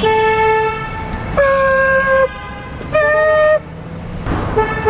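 Vehicle horn sounding a series of long toots at changing pitches: one held note, a higher one, then a higher, shorter one, followed by a run of short toots near the end.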